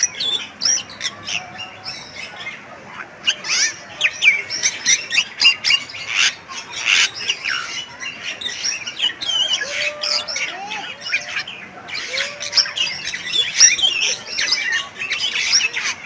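Bali myna (Bali starling) calling in a busy run of harsh squawks, chatters and short whistles, one after another with only brief gaps. A few lower whistled notes come in around the middle.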